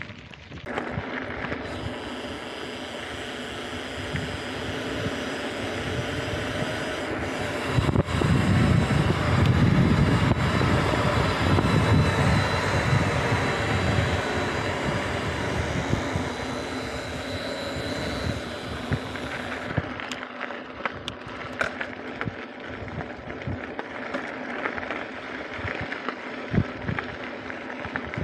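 Wind rushing over the camera's microphone as a mountain bike descends at speed on a gravel track, with the tyres crunching and the bike rattling over the stones. The wind rumble is loudest around the middle, and sharp clicks and knocks from the rough surface stand out near the end.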